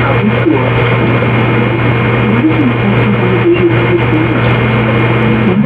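Loud, hissy recording of music, with a steady low hum underneath and wavering pitched tones.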